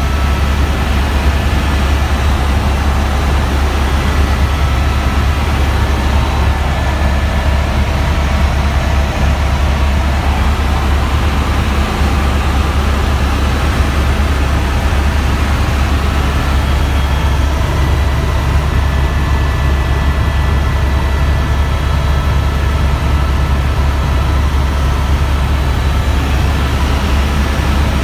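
Helicopter cabin noise in flight, heard from inside: a loud, steady low drone from the rotor and engine with faint, steady high whining tones above it.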